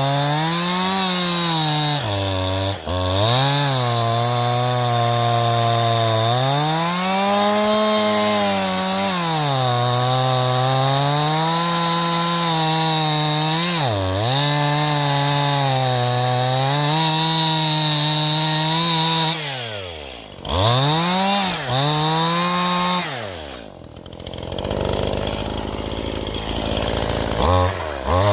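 Stihl MS181 two-stroke chainsaw cutting firewood, its engine pitch sagging and recovering again and again as the chain bites into the wood. Past the two-thirds mark it twice drops back to a low idle, with a brief rev between the two drops and another rev near the end.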